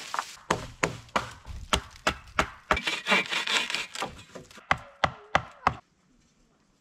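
Rapid series of sharp wooden knocks, about three a second, as wooden poles strike against a log wall. The knocks stop shortly before the end.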